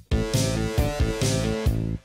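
Instrumental background music with a steady beat and a melody of pitched notes.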